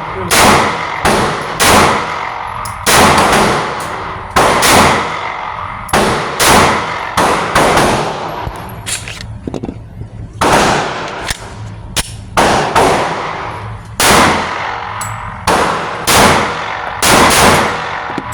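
Pistol gunfire: sharp shots one after another, about one or two a second, each followed by a ringing tail, with a brief pause about halfway through.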